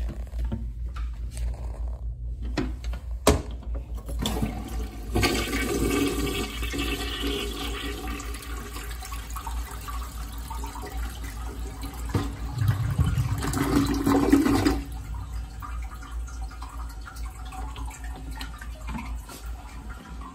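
A toilet flushing: a few clicks in the first seconds, then about ten seconds of rushing, swirling water that is loudest just before it cuts off sharply, followed by a quieter hiss of the tank refilling.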